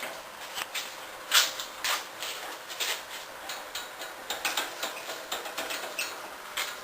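Irregular clicks and knocks of a new steering wheel being tried onto a go-kart's steering shaft, with two louder knocks about a second and a half and two seconds in.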